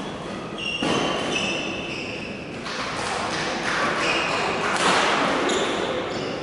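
Badminton court shoes squeaking on the hall floor, with thuds of footfalls and shuttlecock hits as a rally starts, over the echoing noise of a large sports hall.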